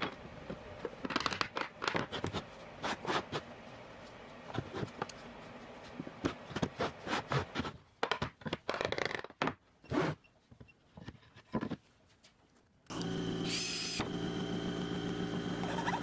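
Irregular scraping, rustling and clicking of hand work on material, thinning to a few taps. About 13 s in, a small machine's motor starts abruptly and hums steadily.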